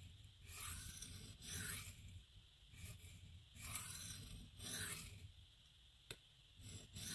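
Steel knife blade rasping in short strokes across a 320-grit diamond sharpening plate, about one stroke a second, with a single sharp click near the end. The blade's rounded-over tip is being ground back into shape.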